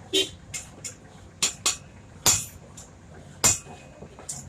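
Hammer striking metal tractor clutch plate parts in an irregular series of sharp, ringing metallic taps, about eight of them.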